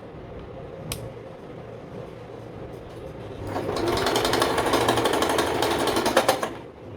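Vigorelli 238 sewing machine running briefly, sewing a zigzag stitch at an even rapid stitch rate for about three seconds in the second half, then stopping; a click about a second in.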